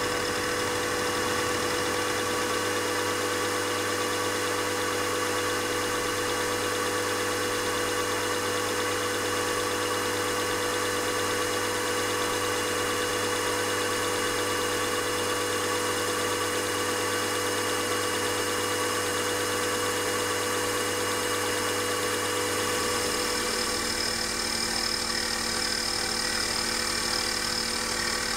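Milling machine running steadily as a half-inch four-flute end mill takes light cuts in a cast iron piston, a constant machine hum made of several held tones. About 23 seconds in, the lowest hum drops out and a slightly higher tone takes its place.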